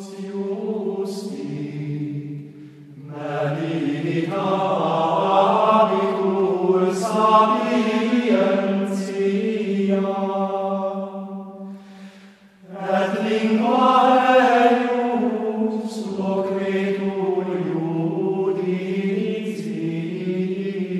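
Slow choral chant as background music: voices holding long notes in drawn-out phrases, with short breaks about two and a half seconds in and again about twelve seconds in.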